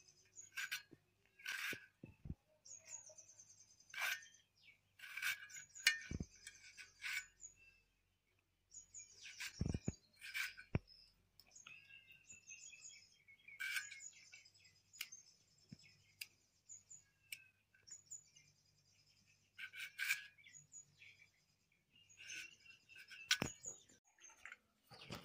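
Small birds chirping and twittering on and off, over sharp, irregular clicks and snaps of vegetables being cut on a floor-standing curved kitchen blade.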